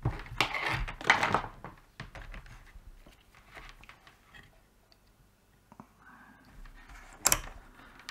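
Handling noise of multimeter test leads being picked up and moved over the board, with scattered small clicks. Near the end there is a sharp click as the Fluke 179 multimeter's rotary dial is turned from DC volts to resistance.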